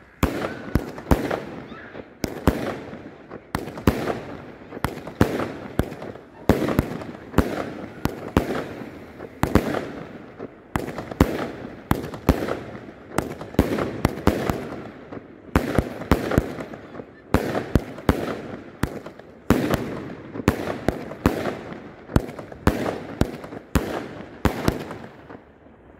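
A 36-shot, 500-gram consumer firework cake firing shot after shot in quick succession: sharp launch thumps and bang reports, each trailed by crackling, several a second with brief pauses between volleys.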